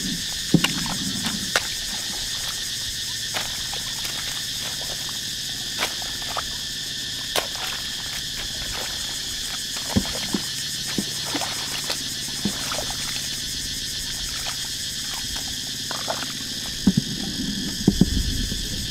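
Steady chorus of insects chirring in the paddy, with scattered sharp wet clicks and splashes as a hoe chops into mud in shallow water. Sloshing steps in water come in near the end.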